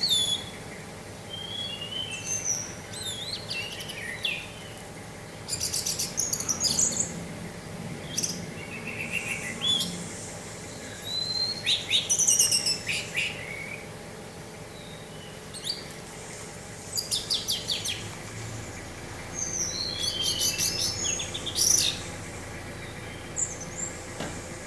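Orange-headed thrush singing in repeated one-to-two-second phrases of varied whistles, slurred notes and fast high trills, with short pauses between, over a faint steady background.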